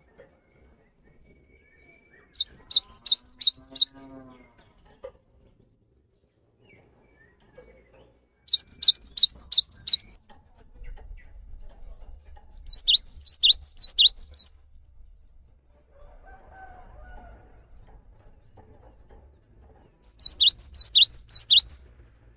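Cinereous tit (gelatik batu) in full song: four bursts of rapid, repeated high whistled notes, each note falling in pitch, with pauses of a few seconds between bursts.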